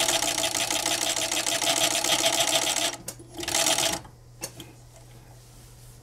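FS-76MD fur sewing machine (furrier's overedge machine with twin disc feeds) stitching shaved shearling at speed for about three seconds. It makes a second short run of under a second, then stops, leaving only a low steady motor hum.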